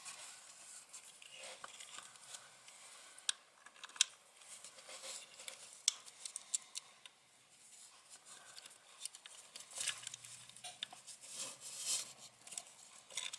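Small metal parts being handled and fitted by hand: tiny M3 nuts and brass standoffs giving scattered light clicks, taps and scrapes against the plexiglass chassis.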